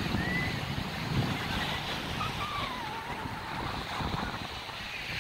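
Wind buffeting the microphone over a steady wash of beach surf, with a few faint high gliding calls in the distance.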